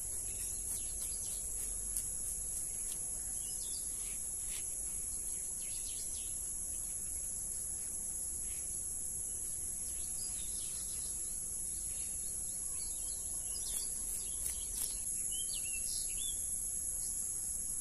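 Steady high-pitched trilling of insects such as crickets, with short bird chirps scattered through and a cluster of them near the end.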